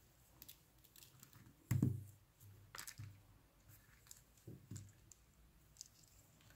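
Faint scattered clicks of small beads knocking together as a beadwork piece is handled and its thread pulled, with a soft thump about two seconds in.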